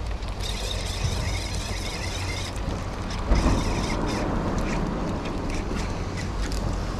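A fishing reel being wound in, a whirring in two spells, over a steady low rumble of wind on the microphone. There is a single thump about three seconds in.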